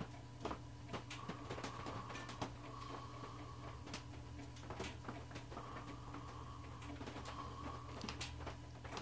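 Quiet room tone with a steady low hum, broken by faint, scattered light clicks as a metal pick touches a brass saxophone key while spreading epoxy on it.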